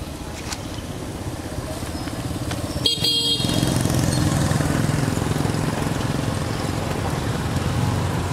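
A motorcycle engine running, growing louder from about three seconds in as it comes closer. A short horn toot sounds just before it swells.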